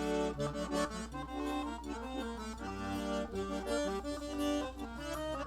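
An 80-bass accordion playing a lively melody of short held notes over chords, with a steady low bass tone underneath.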